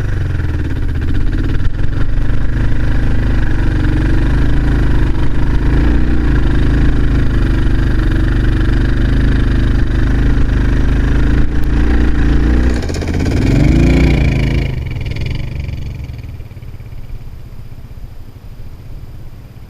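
2001 Kawasaki KLR650's single-cylinder four-stroke engine pulling hard through deep loose sand, its pitch wavering with the throttle. It revs up and back down about thirteen seconds in, then the engine sound falls away much quieter near the end.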